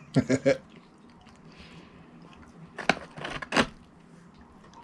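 Close-up eating sounds: a short murmur at the start, then two short crisp crackles about three seconds in as fries are eaten and handled.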